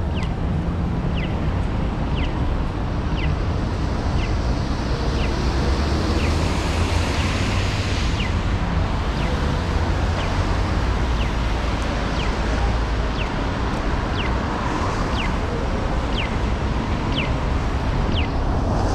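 Japanese pedestrian crossing signal chirping: short, falling, bird-like electronic chirps about once a second. Underneath is a steady hiss and rumble of traffic on wet roads.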